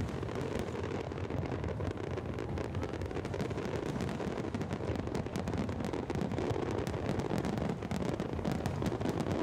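Fireworks display: a dense, unbroken barrage of shell bursts, bangs and crackles over a continuous low rumble.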